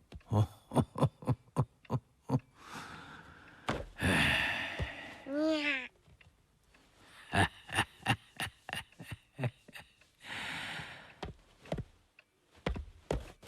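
Cartoon sound effects: runs of quick light taps, a few short whooshing noises, and one brief meow-like 'nya' call about halfway through.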